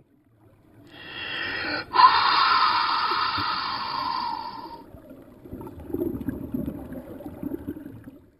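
A diver's voice heard underwater: a held, nasal hum of about four seconds, with a sharp click near its start. It is followed by crackling and gurgling as he breathes air out as bubbles.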